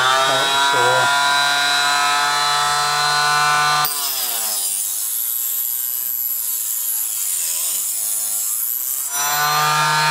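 A 2-inch electric mini chop saw running with a steady high motor whine. About four seconds in, its cutting wheel bites into a brass .50-70 Government cartridge case held in a jig. The motor note drops and wavers under the load with a hissing grind, then rises back to its free-running pitch near nine seconds as the cut goes through.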